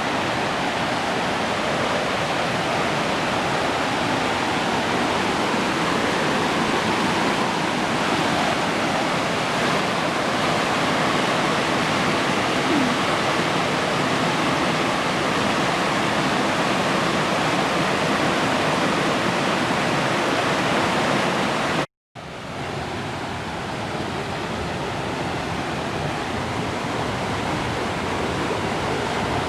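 Fast-flowing river water rushing steadily. It cuts out for an instant about 22 seconds in and comes back a little quieter.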